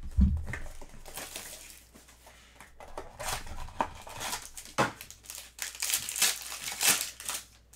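Crinkling and rustling of a foil-wrapped trading-card pack being pulled from its box and opened, in irregular bursts that are busiest in the second half. A low bump right at the start.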